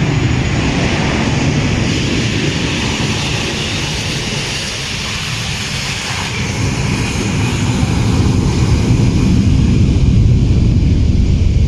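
Jet engines of a Boeing 757-200 cargo plane running as it rolls down the runway just after landing: a loud, steady rumble with a hiss on top, easing slightly midway and swelling again in the second half.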